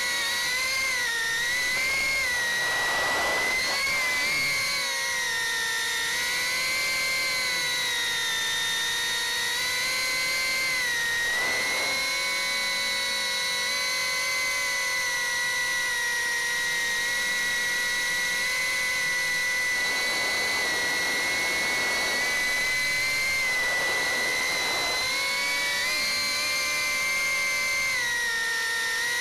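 Beta75X 2S whoop's four 11,000 KV brushless motors with 40 mm four-blade props whining, recorded by the drone's own onboard camera. The pitch wavers up and down with throttle, with a few brief rushing sounds.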